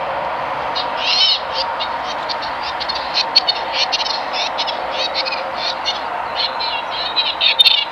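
Airbus A320-232's IAE V2500 jet engines on landing approach and touchdown: a steady rushing hum with a held whine. From about a second in, a fast, uneven high chirping runs over it.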